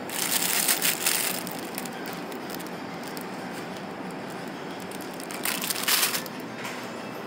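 Plastic produce bag crinkling as a bagged vegetable is handled, in two spells: through about the first second and again about five and a half seconds in, over a steady background hum.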